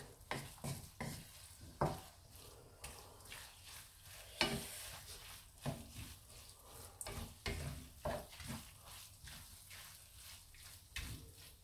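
Wooden spatula stirring and scraping a thick chili and peanut paste around a frying pan while it fries in oil with a soft sizzle. The stirring comes as irregular scrapes and taps against the pan, with stronger strokes about two seconds in, again around four and a half seconds, and near the end.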